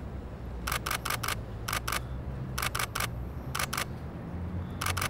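DSLR camera shutter firing in short bursts of two to four rapid clicks, roughly one burst a second, over a low steady background noise.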